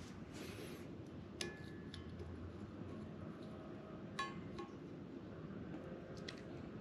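Two light metallic clinks from a steel dial caliper handled against a crankshaft journal while measuring it, one about a second and a half in and a sharper one about four seconds in, each ringing briefly.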